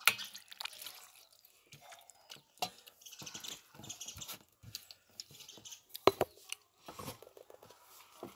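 Eating by hand from a plate: fingers scraping and gathering food on the dish, with scattered sharp clicks and knocks against the plate and some chewing. The loudest clicks come right at the start and again about six seconds in.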